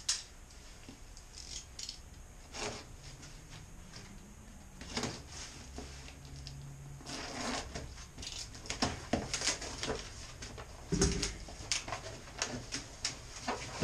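A cardboard box being opened by hand: scattered scrapes, clicks and rustles of cardboard flaps and packing, busier in the second half, with one dull thump about eleven seconds in.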